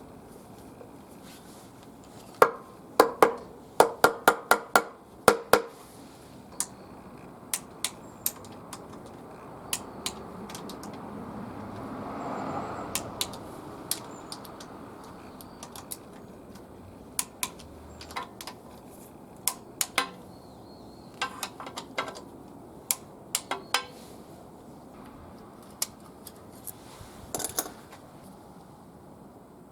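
Metal hand tools and small metal parts clinking and clattering in irregular groups of sharp strikes, densest a few seconds in and again near the end. A soft rushing sound swells and fades near the middle.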